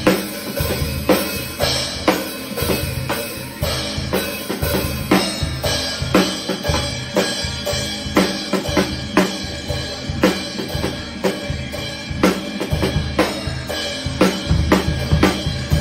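Acoustic drum kit played in a steady beat, with bass drum, snare and Meinl HCS brass cymbal crashes.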